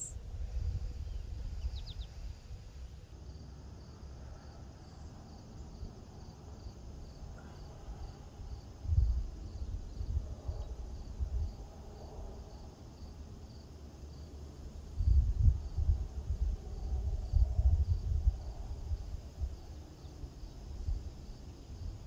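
Insects chirping in a steady, evenly spaced pulse over a grassy field, with wind gusting against the microphone in low rumbles, strongest about nine seconds in and again from about fifteen to eighteen seconds.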